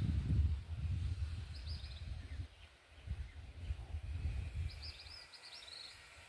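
Outdoor ambience: an uneven low rumble, typical of wind buffeting the microphone, fades out after about five seconds. A small bird chirps twice: a brief call early and a quick run of high notes near the end.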